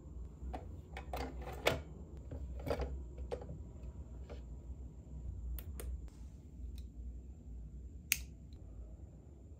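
Small plastic clicks and taps from handling a Pococo galaxy projector as its disc tray and head are set, over a low steady hum. A single sharp click about eight seconds in comes from the inline switch on its power cord.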